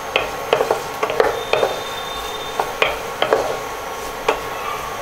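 Potato sticks frying in butter in a non-stick wok, sizzling steadily, while a wooden spatula stirs them with irregular knocks and scrapes against the pan. The potatoes have browned and turned lightly crunchy.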